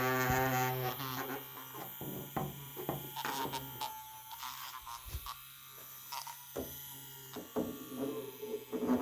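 Electric toothbrush running with a steady low buzz, overlaid by irregular clicks and scrapes. A brighter, higher-pitched tone over the buzz fades about a second in and comes back near the end.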